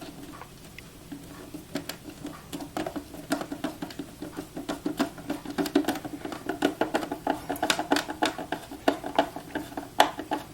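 Phillips screwdriver turning a screw into the plastic housing of a counterfeit-detector machine, making a quick irregular run of small clicks and scrapes that thickens from about two seconds in.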